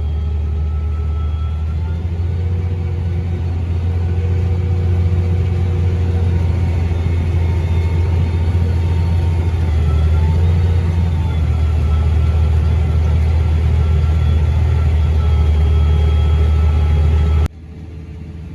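Large diesel farm-machinery engine running steadily under load: a loud, deep rumble with faint whining tones that waver slightly. Near the end it cuts off abruptly to a quieter engine sound.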